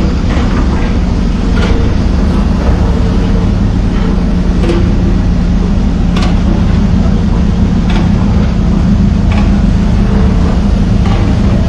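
Steady low drone of a passing ship's diesel engines, with a few faint ticks over it.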